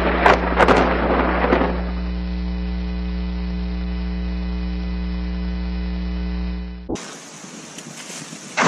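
Steady electrical mains hum with a ladder of overtones, from a security camera's audio. For the first second and a half a noisy rush with a few sharp pops sits over it and fades out. Near the end the hum cuts off suddenly and gives way to a quieter hiss.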